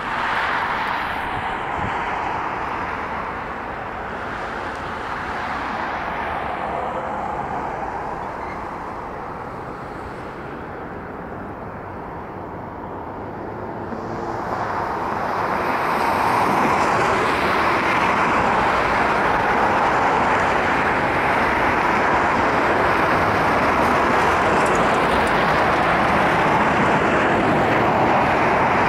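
Twin Rolls-Royce Trent 772B turbofans of an Airbus A330 MRTT tanker running at taxi power: a steady jet engine noise that grows louder about halfway through and then holds.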